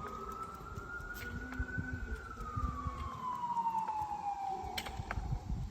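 Emergency vehicle siren in a slow wail: one sweep rising over about two seconds, then sliding slowly down, over a low rumble.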